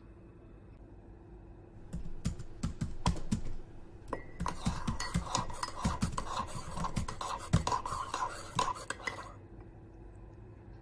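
Plastic spoon stirring a brown mixture in a ceramic mug: a few knocks against the mug, then from about four seconds in several seconds of quick stirring, scraping and clinking on the mug's sides, stopping shortly before the end.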